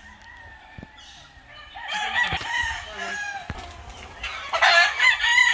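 Gamefowl roosters crowing: one crow about two seconds in and a louder one near the end.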